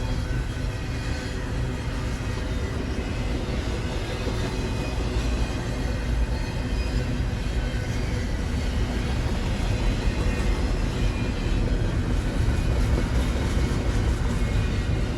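Freight train of well cars rolling past: a steady rumble of wheels on rail, growing a little louder in the second half.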